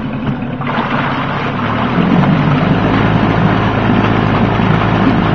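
1995 Mariner 8 hp two-stroke outboard motor revving up from idle in neutral, running faster and louder from about two seconds in and holding at the higher speed.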